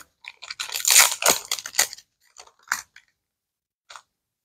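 Crinkling and rustling of a Disney Lorcana booster pack's foil wrapper as the pack is opened and the cards are drawn out, densest in the first two seconds, then a few faint crackles.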